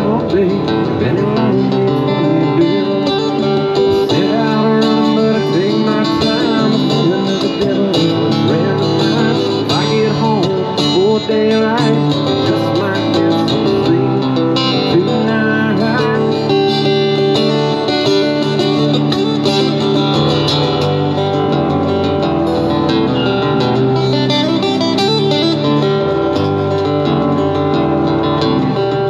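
Live acoustic guitar duo playing an instrumental break without singing: picked guitar lines with bends over a steady strummed accompaniment.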